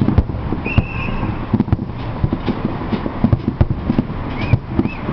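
Fireworks display going off: many rapid, irregular bangs and deeper booms overlapping one another.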